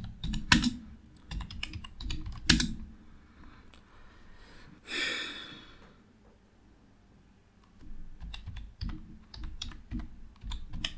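Computer keyboard keystrokes in irregular runs as a search query is typed, pausing briefly in the middle. A short rush of noise about five seconds in.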